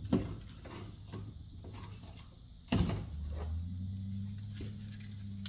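Scrap electrical parts being handled on a work surface: a few light clicks, then one sharp knock a little before halfway, followed by a low steady hum.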